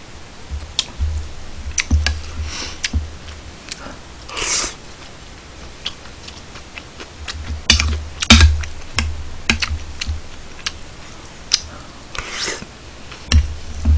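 Eating sounds: scattered clicks of a metal spoon and chopsticks against a ceramic bowl, dull thumps on the table, and a few short breathy hisses.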